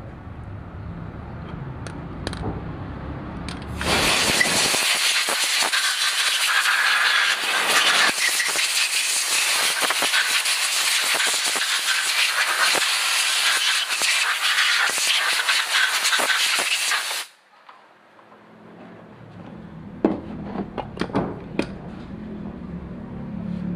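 A loud, steady hiss of air or spray being blown, starting about four seconds in and cutting off sharply some thirteen seconds later. A low rumble comes before it, and a few sharp clicks follow.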